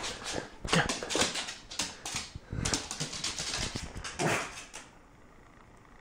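A small poodle-type dog, frustrated, letting out a rapid run of short, noisy huffs and yelps that stops about five seconds in.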